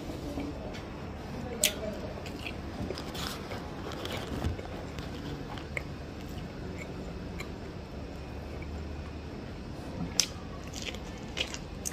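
Biting and chewing kernels off a boiled ear of corn: several sharp bites, the loudest about ten seconds in, with soft wet chewing between.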